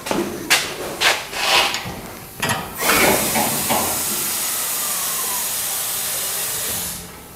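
A few footsteps on a concrete floor, then a steady hiss of compressed air filling the truck's airbag suspension as the body rises, lasting about four seconds and cutting off sharply.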